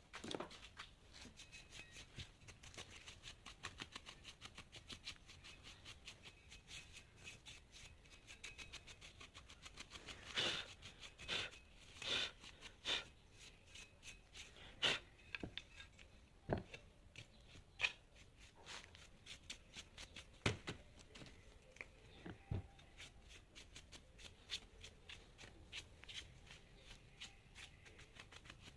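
Hand work on a loudspeaker's parts: irregular small clicks, scrapes and rustles, with a cluster of louder sharp snips or taps about ten to thirteen seconds in and a few more single ones after.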